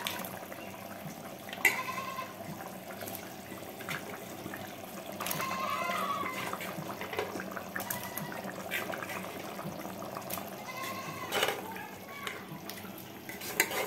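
Pieces of chicken going into a pan of bubbling masala, with a few clinks and knocks of a utensil against the pan.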